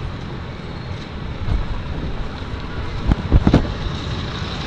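Steady rush of wind buffeting the microphone, with a few low thumps a little past three seconds in.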